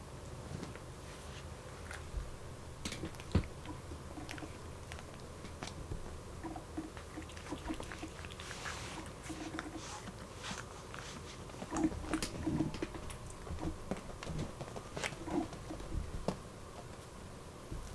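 A cat crunching dry kibble from a glass bowl: irregular small crunches and clicks, busiest in the second half.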